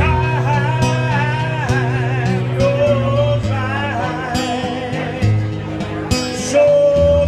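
A man singing live into a microphone, holding long notes with vibrato, over instrumental accompaniment with guitar.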